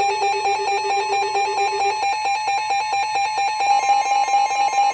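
Emergency alert alarm on a weather radio: loud, rapid, repeating electronic beeps over a steady tone that stops about two seconds in, marking the start of a new severe thunderstorm warning.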